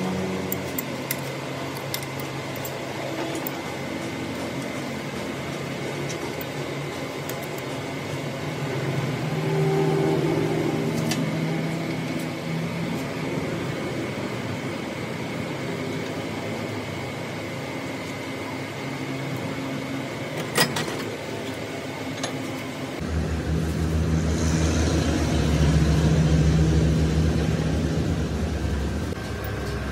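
Metal lathe running steadily, with a faint constant high whine over its hum. A single sharp click comes about two-thirds of the way through, and soon after the running sound turns louder and deeper.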